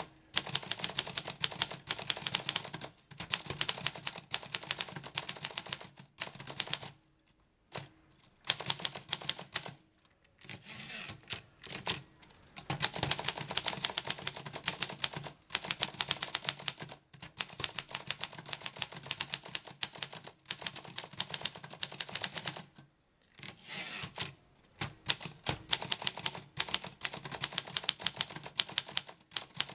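Groma Kolibri manual portable typewriter being typed on: fast runs of sharp key strikes, broken a few times by short pauses. A single short ring sounds about two-thirds of the way through.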